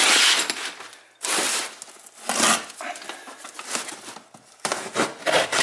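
A cardboard box being handled and opened, with crumpled kraft packing paper crinkling, in several short bursts of rustling.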